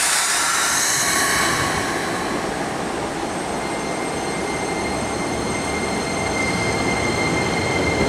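Keikyu 2100-series electric train pulling away from the platform and picking up speed. A hiss in the first second or so gives way to running noise and a steady high whine from the traction equipment.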